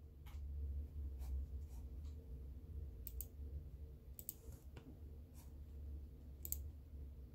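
About a dozen irregularly spaced clicks of a laptop's pointer as menus and dialogs are opened, over a low steady hum.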